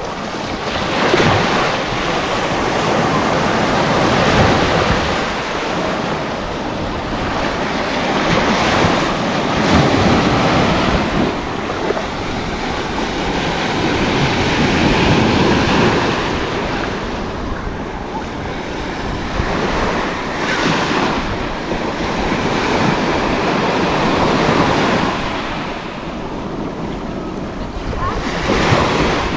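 Sea waves breaking and washing on a sandy beach, swelling and fading every few seconds, with wind buffeting the microphone.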